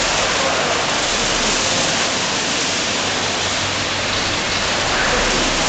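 Tepo-Auto rollover car wash machine at work: a rotating top brush scrubbing a wet car amid spraying water, making a steady rushing hiss.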